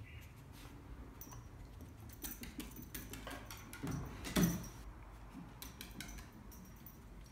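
A small dog moving about on wooden floorboards, its claws clicking and tapping in short irregular runs, with one louder thump about four and a half seconds in.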